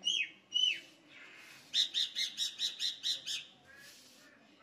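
A bird calling: two quick down-slurred whistled notes, then a rapid run of short chirps, about five a second, lasting under two seconds.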